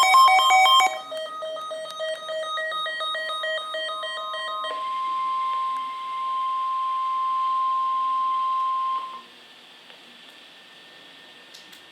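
Emergency Alert System warning tones: rapid stuttering electronic beeps for about the first second, then a steady buzzing tone, then at about five seconds a single pure steady alert tone that cuts off abruptly after about four and a half seconds. Faint hiss follows.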